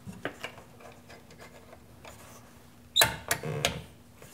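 Small plastic clicks and handling of a 10x32 DIN-rail fuse holder being loaded with a fuse. The carrier snaps shut with one sharp click about three seconds in, followed by a couple of lighter clicks and a brief rattle.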